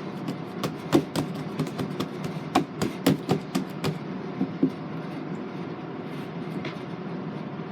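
Homemade putty being squeezed and stretched by hand, giving a quick, irregular run of sharp clicks and pops that stops about four and a half seconds in. A steady low hum runs underneath.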